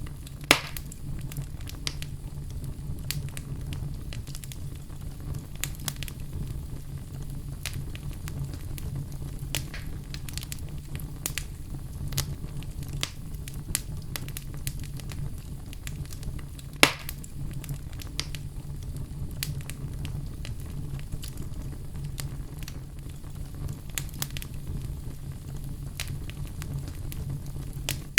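Wood fire crackling in a fireplace: many small scattered crackles over a steady low rumble, with two louder pops, one about half a second in and one a little past the middle.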